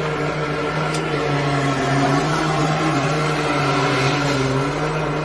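High-pressure drain jetter running steadily, its engine-driven pump giving a continuous drone that wavers slightly in pitch while the hose works in the drain.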